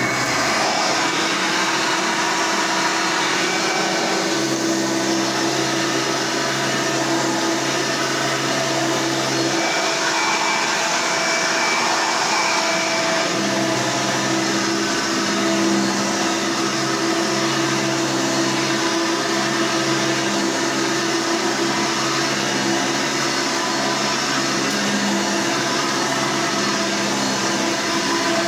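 Hoover Elite upright vacuum cleaner running steadily, its motor a constant hum with a whine over it.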